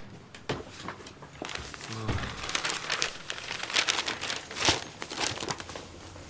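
Newspaper pages rustling as the paper is opened out and handled, a run of irregular sharp crinkles with the loudest about three-quarters of the way through.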